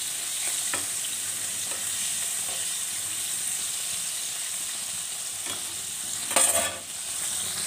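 Chicken pieces coated in arrowroot sizzling steadily in hot frying oil while a metal spatula stirs and turns them, with a few light clicks of the spatula against the pan. A brief louder scrape of the spatula comes near the end.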